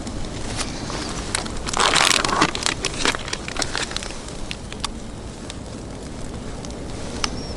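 Scattered sharp clicks and crackles, with a louder burst of crunching about two seconds in, over a steady low rumble.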